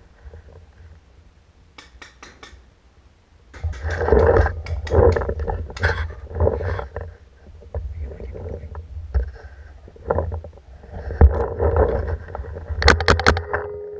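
Handling and movement noise on a camera mounted on a paintball marker's barrel as the player moves: irregular low thumps and rustling, with a quick run of sharp clicks just before the end.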